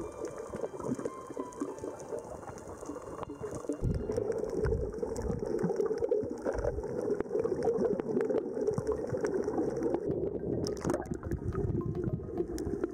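Underwater sound picked up by a camera in its housing while snorkeling over a coral reef: a muffled rush and rumble of water with a fine, continuous crackle.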